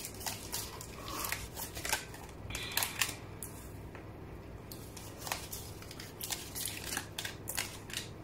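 Tarot cards being handled and laid down one at a time on a wooden tabletop: a series of light, unevenly spaced clicks and taps with a brief soft slide of card.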